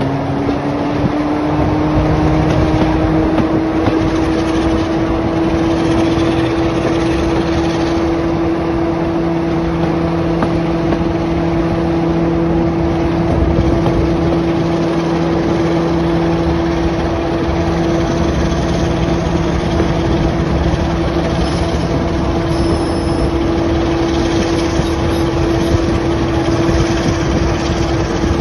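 Class 45 diesel locomotive's twelve-cylinder Sulzer engine running under power as the train moves along, a steady drone that climbs slightly in pitch in the first couple of seconds and then holds. Heard with wind and running noise at an open carriage window.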